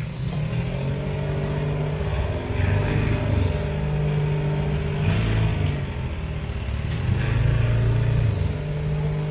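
Small mini pickup truck's engine running at low speed close by, its note rising and falling a couple of times as it creeps along.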